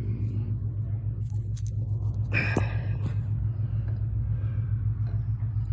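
Steady low hum with an even pulsing, and one short, higher-pitched sound about two and a half seconds in.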